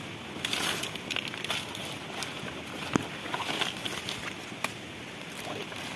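Footsteps through forest undergrowth: leaves rustling and stems crackling underfoot, with a couple of sharp snaps, one about three seconds in.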